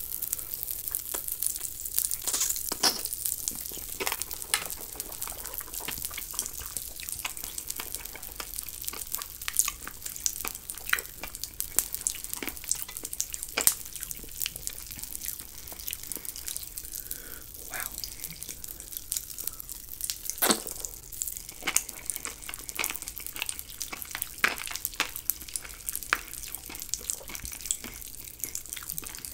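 Close-miked wet mouth sounds of biting and chewing a soft purple gelatin jelly off a wooden skewer: an irregular run of sharp, wet clicks and crackles.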